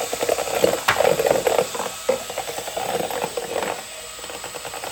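Cordless drill with a mixing paddle churning thick Peel Bond primer in its can, a rapid rough churning and rattling. It gets quieter near the end as the drill's battery runs out.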